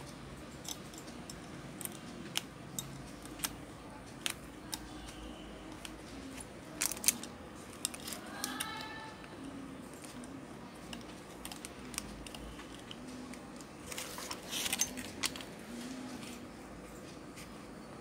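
Light clicks and taps as a small circuit board is handled and worked free of a metal spring-loaded PCB holder. There is a short squeak about halfway through and a quick flurry of clicks late on.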